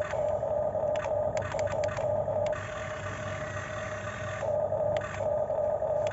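Electric motor and gears of a radio-controlled model construction machine whining steadily, with a run of sharp clicks about one to two seconds in. The whine drops to a quieter, rougher hiss for a couple of seconds in the middle, then comes back strongly.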